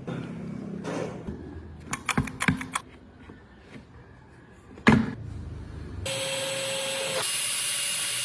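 Workshop sounds: a few taps and clicks, one sharp knock about halfway, then a power tool running steadily for about two seconds near the end before cutting off suddenly.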